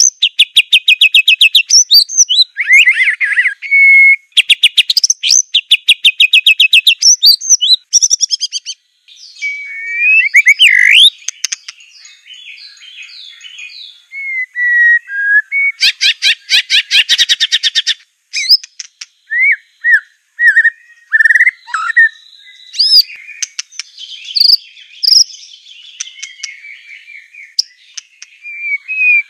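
A white-rumped shama of the Aceh type sings a loud, varied song: several long runs of rapid rattling trills alternate with clear whistled slurs and softer twittering.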